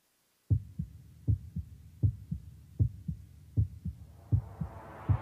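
Heartbeat sound on a film soundtrack: low double thumps, lub-dub, about eighty a minute, starting half a second in. A rising wash of sound swells in under the beats over the last second or so.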